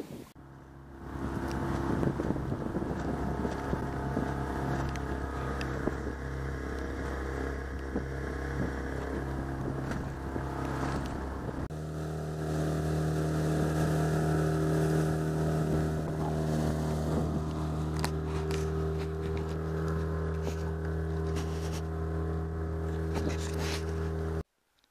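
A motorboat engine running at a steady speed, with water and wind rushing past. Its pitch and level step up about twelve seconds in, and it cuts off suddenly near the end.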